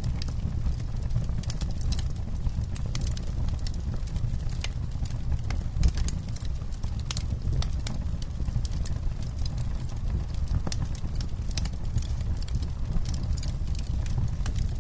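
Wood campfire crackling: irregular sharp pops and snaps over a steady low rumble of burning flames.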